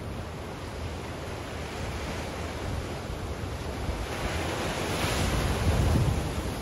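Bay waves washing against the shore, swelling into a louder surge about four seconds in, with wind rumbling on the microphone.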